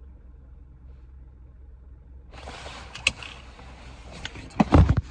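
Inside a car: a steady low rumble, joined about two seconds in by a steady hiss that switches on suddenly. A few clicks follow, then loud thumps near the end as the phone filming is grabbed and handled.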